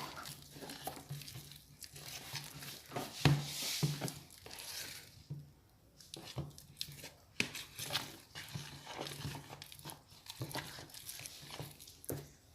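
Soft homemade slime of cornstarch, toothpaste and liquid soap being mixed, with irregular sticky clicks and crackles as it is worked.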